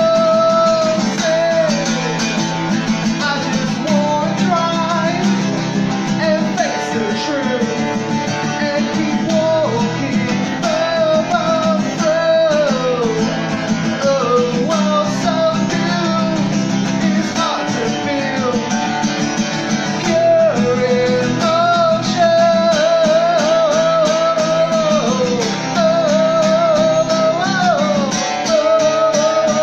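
A man singing a song while strumming a cutaway acoustic guitar.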